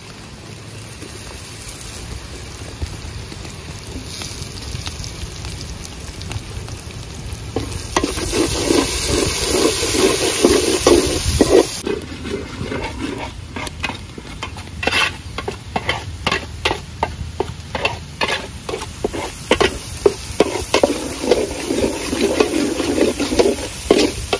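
Chopped tomatoes and green chillies frying in hot oil in an aluminium pot, sizzling, while a metal ladle stirs and scrapes the pot. The sizzle grows louder over the first several seconds; in the second half the ladle strokes come in a regular run, about two a second.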